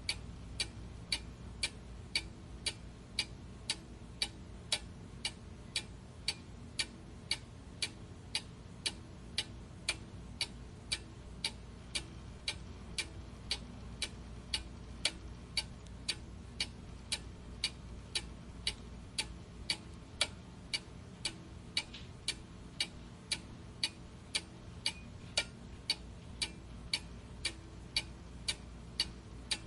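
Clock ticking steadily at about two ticks a second, each tick a short sharp click, over a faint steady low hum.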